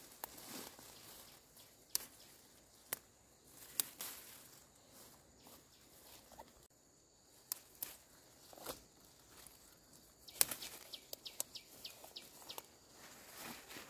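Fern stems snapped off by hand among rustling leaves: faint, scattered sharp snaps, with a short run of quick high ticks near the end.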